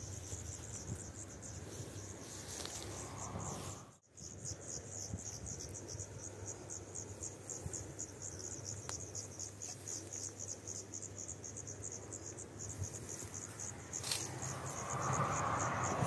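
Crickets chirping in a steady, high, rapidly pulsing trill, cutting out briefly about four seconds in. Near the end a louder rushing noise rises beneath it.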